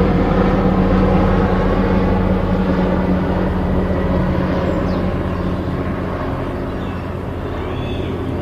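Helicopter flying, with the rapid chop of its rotor blades and a steady engine drone, gradually getting a little quieter.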